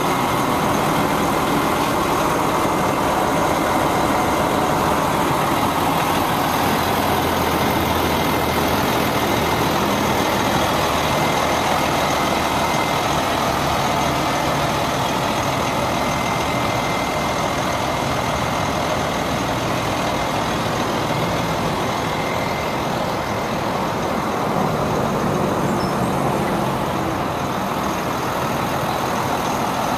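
International DT466 straight-six diesel engine of a 2005 International 4400 fuel truck idling steadily.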